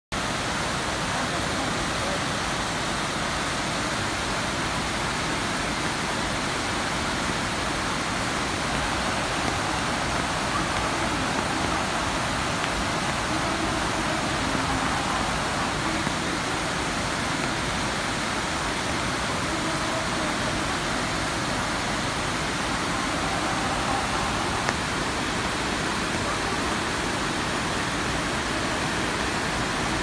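Rushing white water of river rapids and falls: a steady, even roar that does not change.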